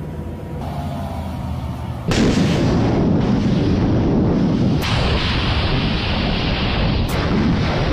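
A BM-27 Uragan launcher firing its 220 mm rockets: a low rumble, then about two seconds in a sudden, loud and continuous rush of launch noise, with two sharp cracks in the second half as further rockets leave the tubes.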